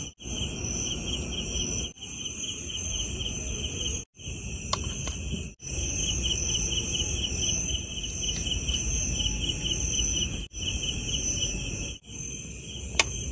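Crickets trilling steadily in a rapid pulsing chorus, with a second, higher insect tone above it. The sound breaks off for an instant about five times.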